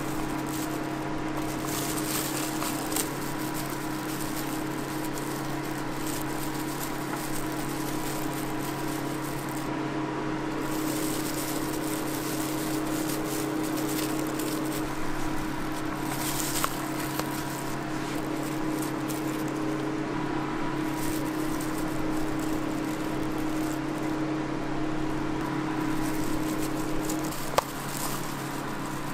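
Steady machine hum of kitchen equipment, with soft clicks and rustles as toppings are placed on a waffle by gloved hands, and one sharp click near the end.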